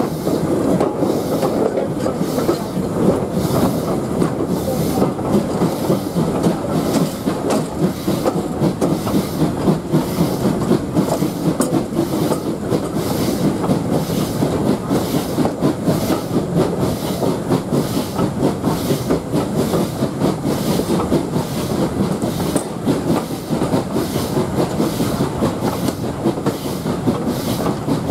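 Steam train hauled by LMS Ivatt Class 2MT tank engine no. 41312 running along the line, heard from beside the locomotive: a steady, loud rumble and clatter of wheels on rail with a regular beat.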